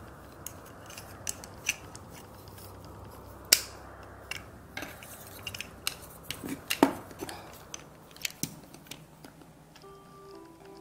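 Plastic Play-Doh extruder and shape plate being handled and fitted together: scattered clicks and taps of plastic on plastic, with two sharper knocks about three and a half and seven seconds in. Background music comes in near the end.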